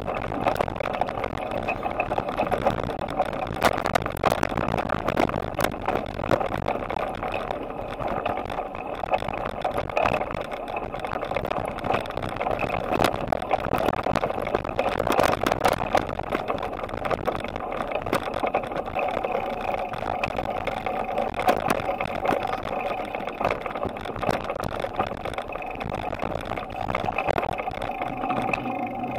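Riding noise of a bicycle heard through a handlebar-mounted camera: a steady rush of tyres and wind with many small rattling clicks throughout.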